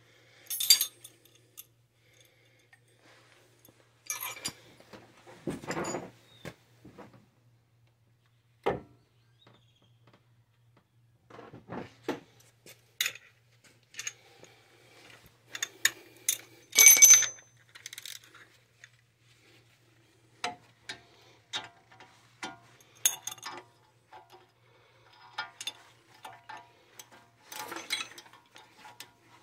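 Metal hand tools and parts clinking and knocking in scattered strikes, the loudest a ringing metal clink about two-thirds of the way in. Near the end a socket ratchet wrench clicks rapidly as it turns a bolt on the front suspension.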